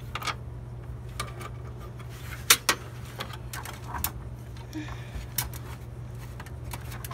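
Scattered metallic clicks and clunks of hands and a screwdriver handling a steel desktop PC case, with two sharper knocks about two and a half seconds in. A steady low hum sits underneath.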